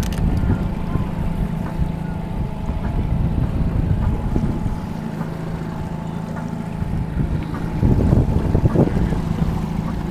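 Outboard motor running steadily at low trolling speed, a constant low hum, with wind on the microphone and water splashing; the splashing gets louder about eight seconds in.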